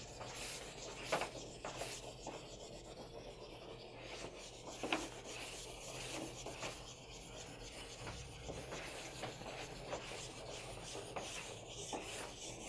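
Faint, continuous rubbing of chalk pastel on paper as the gray and black are blended in, a soft scratchy sound with a couple of brief sharper ticks.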